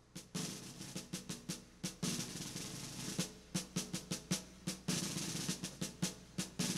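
Solo snare drum beating a cadence of sharp strokes and short rolls, stepping up in loudness a moment after the start.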